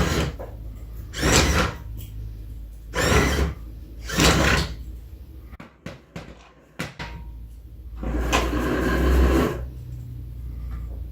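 3D-printed BB-8 droid driving in short spurts: its drive motors and rolling ball body make about five separate surges of noise over a low hum, the longest near the end.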